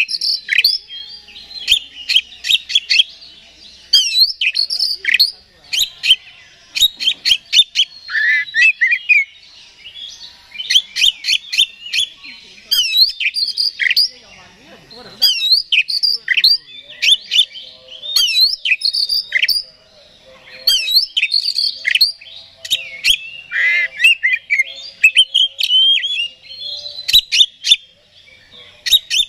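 Male oriental magpie-robin (kacer) in full 'gacor' song: rapid runs of sharp clicking notes and quick whistled slurs, in bursts of a second or two with short pauses between them.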